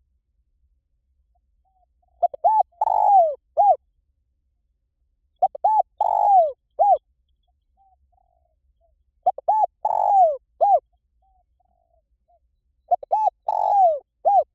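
Spotted dove cooing: four like phrases, each a few short coos around one longer falling coo, repeated about every three and a half seconds. It is the call used to lure wild spotted doves in to a decoy.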